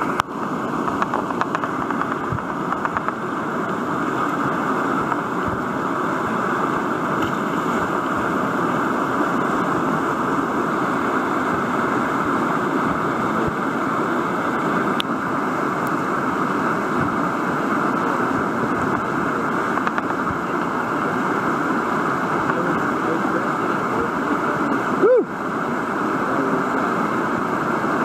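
Steady rush of whitewater from a river rapid's standing wave, a loud even roar of churning water, with one brief louder bump about three seconds before the end.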